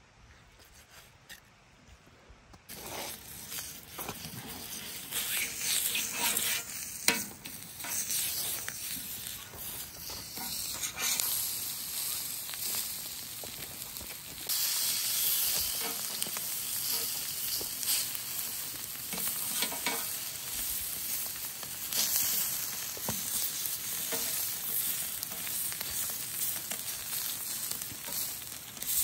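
Liver frying in hot fat, with a steady sizzle and frequent short scrapes and knocks of stirring. The sizzle starts about three seconds in and gets louder about halfway through.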